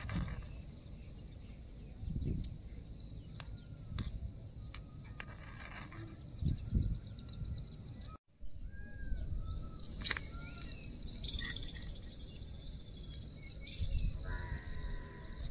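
Small metal clicks and clinks of a steel slotted spoon working in a miniature kadai of frying oil, with birds chirping in the background.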